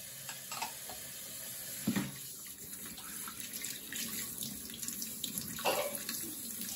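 Kitchen tap running into a stainless steel sink while dishes are washed under the stream with a sponge, with two sharp knocks, about two seconds in and again near the end.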